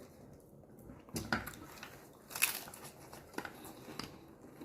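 Biting into and chewing a crisp fried corn tostada, a few sharp crunches with the loudest about two and a half seconds in.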